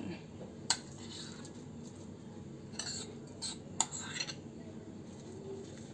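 Steel spoon scraping boiled mashed potato out of one glass bowl into another, with a few sharp clinks of metal on glass: one about a second in and several more around three to four seconds in.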